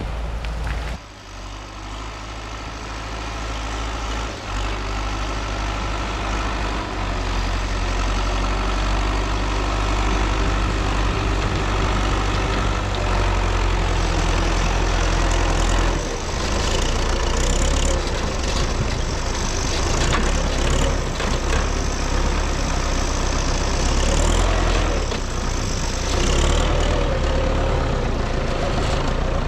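MTZ-82 tractor's diesel engine running steadily, dipping briefly about a second in and then building up over the next several seconds.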